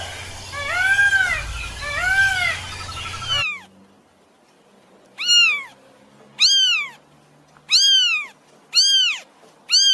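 Cat meowing: three drawn-out meows over a steady hum, then a sudden cut and a series of short, higher-pitched meows repeating about once a second.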